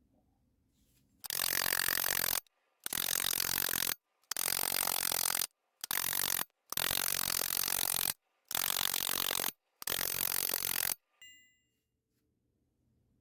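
Seven bursts of harsh scraping, each about a second long, stopping sharply with silent gaps between, then a short ringing clink near the end.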